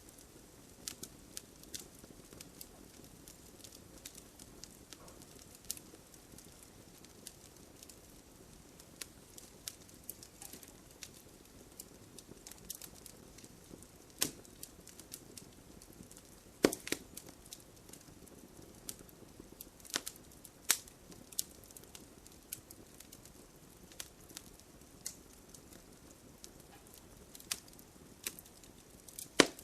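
Wood fire crackling in a fireplace: a low steady hiss with irregular sharp pops and snaps, a few of them much louder.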